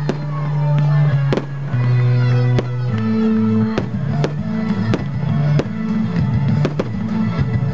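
Music with sustained, changing bass notes, with sharp fireworks bangs and crackles cutting through it about once a second as shells burst.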